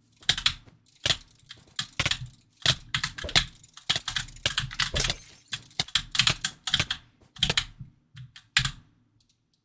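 Keyboard typing: rapid keystroke clicks in quick clusters, thinning to a few faint taps in the last second or so.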